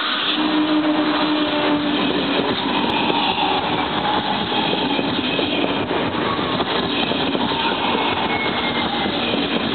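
ČD class 680 Pendolino electric train moving off past the platform: a steady rush of wheels and running gear, with a faint humming tone that fades about two seconds in.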